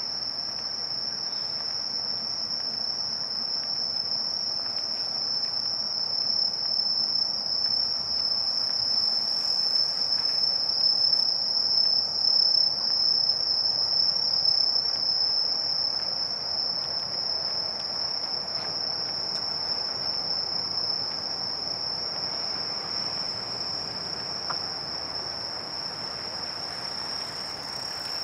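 Dense, steady, high-pitched chorus of autumn crickets, over a low background rumble that swells in the middle and then fades.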